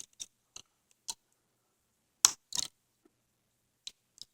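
Small sharp clicks and taps from handling the opened tablet's parts while seating a cable in its connector, with a louder pair of clicks a little over two seconds in.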